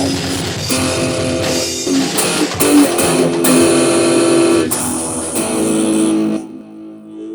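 Loud, distorted guitar music with held chords that change every second or so, falling to a quieter passage about six seconds in.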